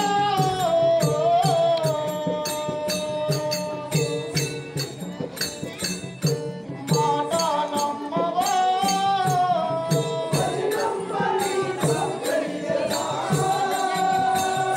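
Live music for a stage drama: a long-held melody line that bends and steps in pitch, over a steady drum beat with jingling strokes on top.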